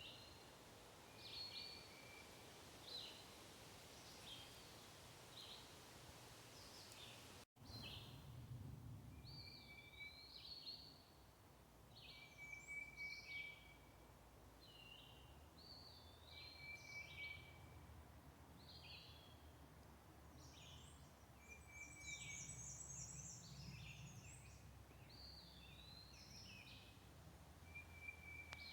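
A songbird singing short, repeated phrases of clear whistled notes, one every second or two, over a faint low rumble of wind.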